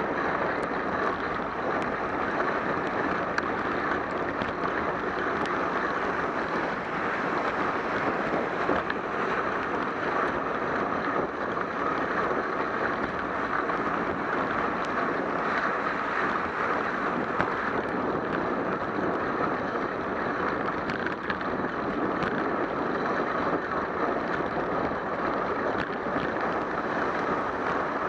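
Steady rushing noise of a bicycle riding on a rain-soaked road: tyres hissing through the water and wind buffeting the bike-mounted camera's microphone, with a few faint ticks.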